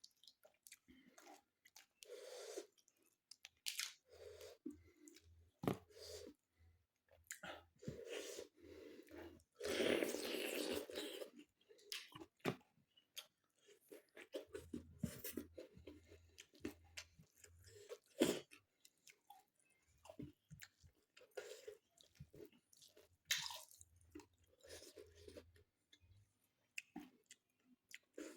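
A person chewing and crunching food close to the microphone, with irregular wet mouth clicks and bites. There is a louder, longer spell of noise about ten seconds in.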